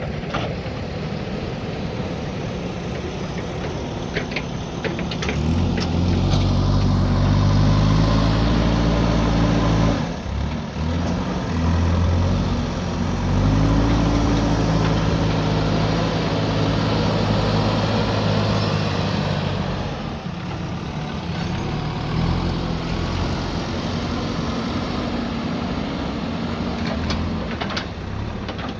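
JCB backhoe loader's diesel engine running, revving up and working under load for about fifteen seconds from about five seconds in, with a brief drop near the middle of that stretch, then settling back to a lower, steady run. A few short knocks sound shortly before the revving and again near the end.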